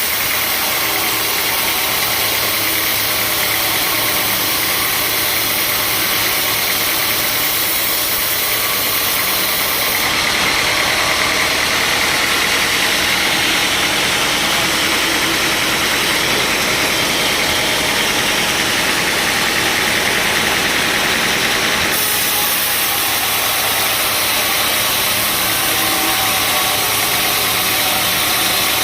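Sawmill machinery running with a steady engine drone and a dense, hissing noise. The sound changes abruptly about ten seconds in and again about twenty-two seconds in.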